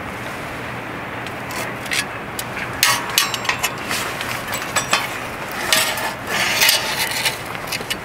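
Metal tongs clinking and scraping against a steel fire pit and knocking pieces of wood about as a fire is being built. An irregular string of sharp clicks and clatters begins about a second and a half in, over a steady background hiss.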